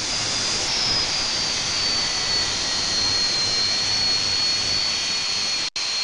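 FEIN GHB 15-50 handheld belt grinder running under load, its abrasive belt grinding down a steel weld seam and throwing sparks. A steady, loud grinding rush with a high whine that dips slightly about a second in and then holds. The sound cuts out for an instant near the end.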